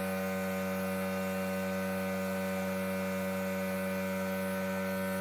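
Steady electric hum with several overtones and a faint hiss above it, unchanging throughout.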